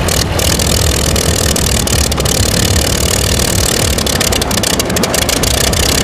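Aircraft piston engine running steadily, heard through the hiss of an old film soundtrack.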